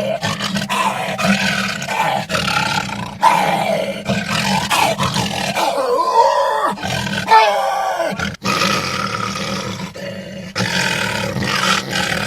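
A series of long, wavering lion roars voiced by a man roaring into a metal trash can, the bin's ringing echo adding weight to the roar.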